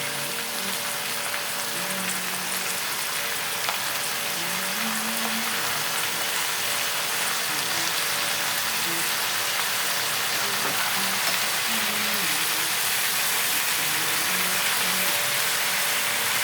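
Food frying in hot oil in a pan: a steady sizzling hiss that grows slightly louder.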